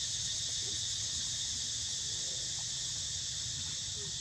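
A steady, high-pitched insect chorus droning without a break, over a low background rumble.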